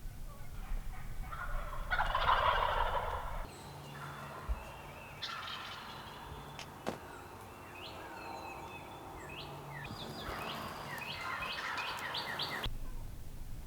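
Wild turkey gobbling: one loud gobble about two seconds in, followed by further series of short turkey calls in the middle and again near the end. A couple of sharp clicks in between.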